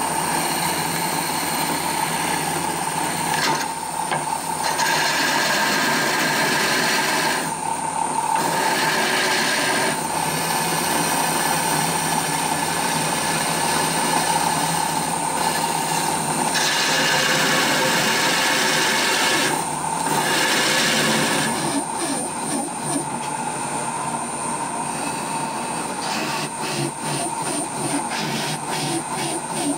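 Drill press running a worn hole saw through carbon fibre sheet: a continuous grinding rasp over a steady hum, swelling and easing several times, with a faster chatter in the last third. The saw's tooth gullets are clogging with dust, so it rubs and heats up rather than cutting cleanly.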